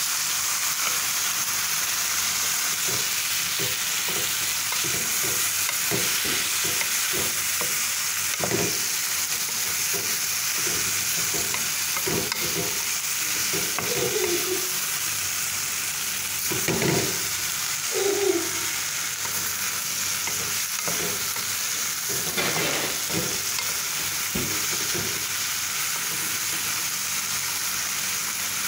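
Sliced bitter gourd with tomato and egg sizzling steadily in a stainless steel pan, stirred with a wooden spatula whose strokes scrape and knock against the pan at irregular moments.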